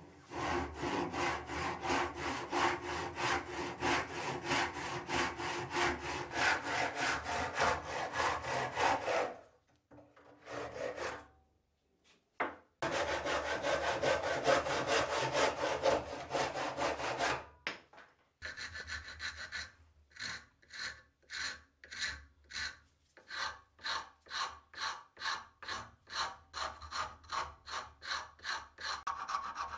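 Hand saw cutting across a wooden handle blank in quick, steady strokes, in two runs with a short break between. From about two-thirds of the way in, a hand file rasps the cut wooden handle piece in slower, separate strokes.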